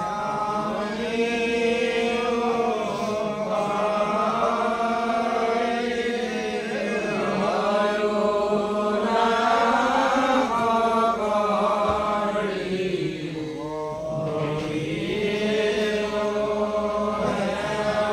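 A congregation of men and women chanting devotional naam together in an Assamese naam-prasanga, in long sustained phrases whose pitch rises and falls.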